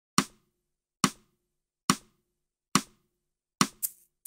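Drum beat opening a song: four single sharp hits just under a second apart, then quicker hits coming in pairs near the end.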